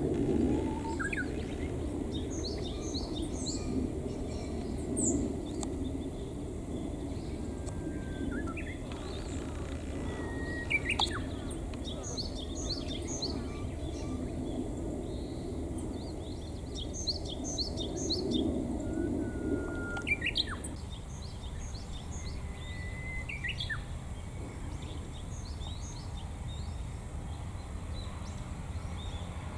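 Wild birdsong: many small birds chirping and twittering throughout, with two short, loud two-note calls about eleven and twenty seconds in that fit the crow of a male green pheasant.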